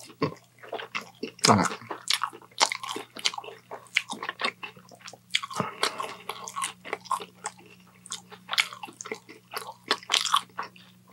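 Close-miked chewing and smacking of a person eating Chinese takeout, with a plastic fork poking and scraping in a takeout container, over a faint steady low hum.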